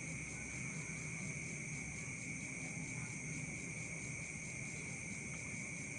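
Steady background room tone of the voice-over recording: a constant high-pitched drone made of several fixed pitches, with faint low noise beneath and no other events.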